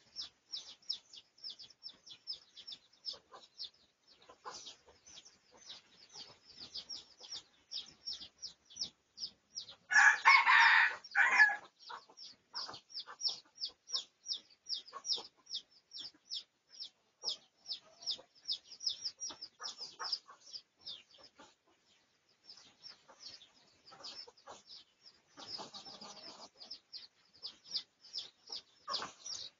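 A red junglefowl rooster crows once, briefly, about ten seconds in, the loudest sound here. Under it, small birds keep up a fast run of short, high chirps throughout, and a softer call comes near the end.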